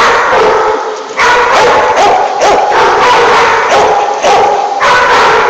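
Dogs barking loudly, a rapid string of about eight barks one after another, during rough play.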